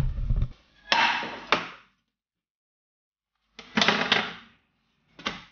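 Handling noises: a knock and thud as the camera is set down, then short scraping bursts of a spatula working a pancake in a frying pan, with clicks of the utensil against the pan.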